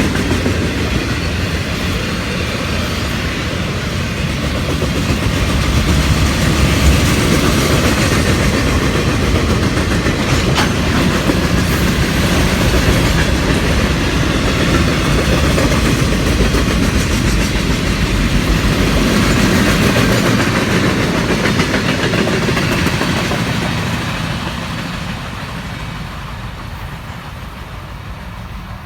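Florida East Coast Railway freight cars rolling past: a steady rumble with clickety-clack of wheels over the rail joints. It fades over the last few seconds as the train moves away.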